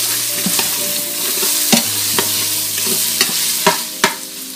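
Ground beef sizzling in the hot oil of an Instant Pot's stainless steel inner pot on sauté, stirred with a plastic spoon that scrapes and clicks against the pot several times.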